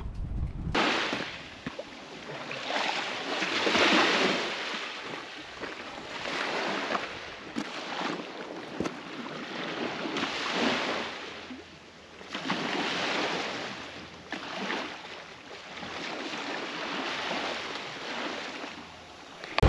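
Small sea waves washing in and out at the water's edge, each swell rising and fading every few seconds.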